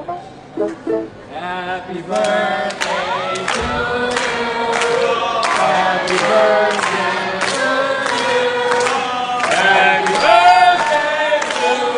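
A group of people singing together and clapping in time, starting about two seconds in, after a few short voice sounds.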